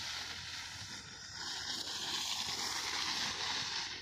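Steady rustling hiss of green wheat plants brushing and swishing against each other, easing off near the end.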